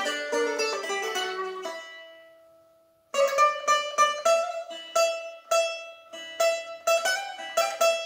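Üç telli, a small three-stringed Turkish folk lute, played solo in a free improvisation. A quick run of plucked notes rings away to silence about two seconds in, and after a short pause the playing resumes with separate, ringing plucked notes, two or three a second.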